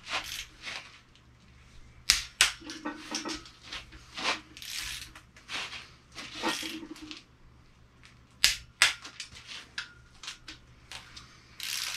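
Small ratchet-head torque wrench tightening the cylinder head bolts of a Mini Cooper R53 engine through the first 30 Nm stage. Bursts of ratchet clicking come as the handle is swung back and forth, with a few sharp, louder clicks about two seconds in and again after eight seconds.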